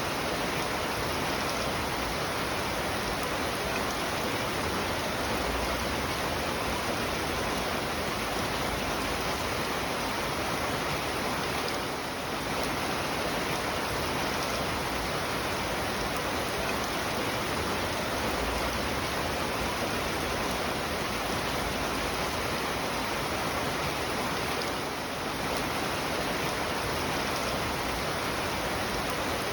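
Steady rain falling, an even, dense hiss with no single drops standing out, easing slightly for a moment twice.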